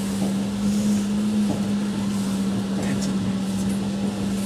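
Cape Fox Hill Tram funicular car climbing its track, heard from inside the car: a steady hum with a constant low tone and a few faint clicks.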